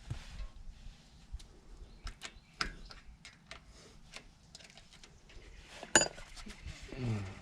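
Scattered light metal clicks and taps from greased front-hub parts being handled and fitted onto the axle spindle. One sharp click about six seconds in, then a brief low sound falling in pitch near the end.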